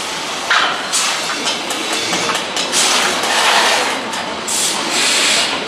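Factory-floor noise during engine assembly: a steady machinery hiss with irregular metallic clinks and clatter.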